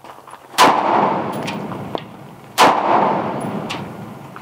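Two unsuppressed 5.56 rifle shots from a 10.5-inch-barrel AR-15 pistol with a muzzle brake, about two seconds apart. Each sharp crack is followed by a long, fading rolling echo.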